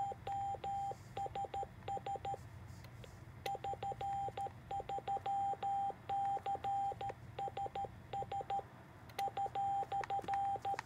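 Morse code (CW) sidetone from a Xiegu X108G transceiver, keyed by hand on a capacitive touch paddle while the rig transmits into a dummy load: a steady mid-pitched beep sent as dots and dashes, in three runs with short pauses between them.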